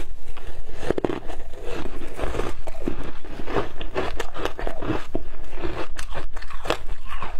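Biting and chewing a piece of ice topped with passion fruit pulp: an irregular run of sharp crunches and cracks as the ice breaks between the teeth.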